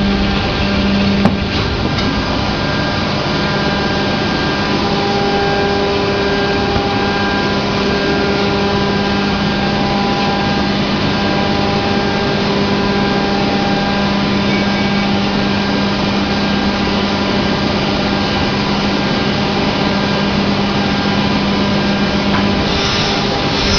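Plastic molding machine running: a steady mechanical drone with a constant low hum. A higher hiss comes up near the end.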